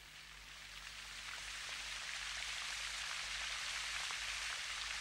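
Rain falling: a steady, even patter that swells over the first few seconds.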